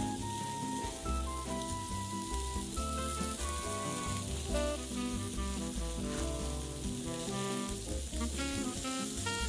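Marinated chicken sizzling steadily on a grill, a continuous crackling hiss of fat and juices hitting the heat, under soft bossa nova background music.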